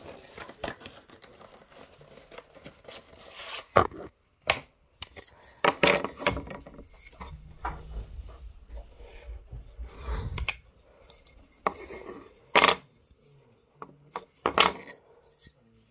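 Bigjigs Rail wooden long curved track pieces being handled and stacked: irregular sharp clacks of wood on wood, with rubbing and sliding against the tabletop in between.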